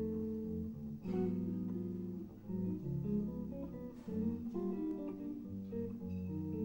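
Two archtop electric jazz guitars, one a seven-string, playing a ballad-tempo duet: plucked chords over a low bass line that moves under sustained chord tones.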